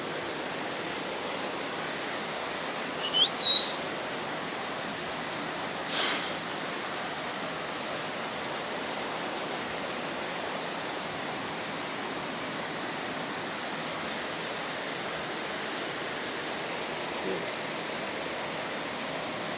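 Steady rushing of a waterfall. About three seconds in, a bird gives a short rising chirp over it, and a brief click follows a couple of seconds later.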